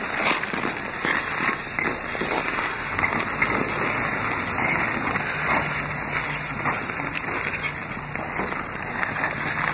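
Ice skate blades scraping across rough outdoor rink ice: a steady scraping noise with many small clicks and crunches.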